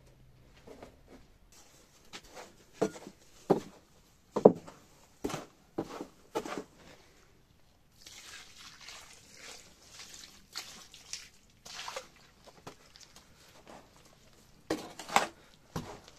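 Knocks and scrapes in a mixing tub of dry soil, lime and straw fibre, then water poured onto the dry mix, splashing for about four seconds, then a hoe chopping and scraping through the wet fibred mud near the end.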